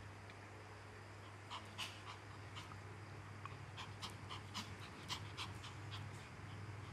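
Small puppy panting in short, quick, irregular breaths for a few seconds while it wrestles a stuffed toy, over a low steady hum.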